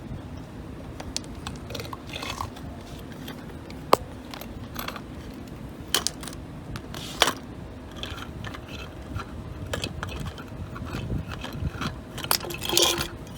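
Hand-held lever grease gun being taken apart for loading: scattered metal clicks, knocks and scrapes as the head is unscrewed from the barrel and the plunger rod is drawn back.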